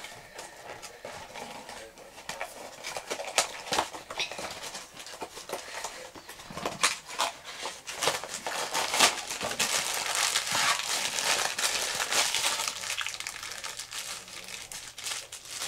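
A cardboard blind box being opened by hand, with scattered clicks and rustles, then the foil blind bag from inside it crinkling as it is worked open.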